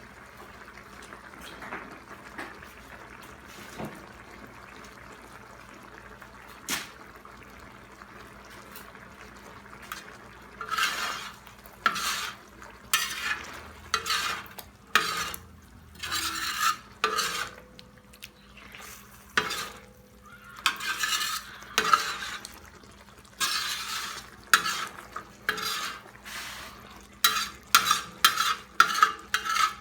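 Chicken, onion and tomato sizzling in oil in a tawa, a faint steady hiss at first. From about ten seconds in, a spatula scrapes and stirs against the pan in repeated strokes, which quicken to about two or three a second near the end.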